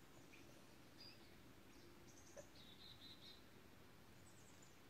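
Near silence outdoors with faint bird chirps: several short, high calls and a brief run of chirps near the middle.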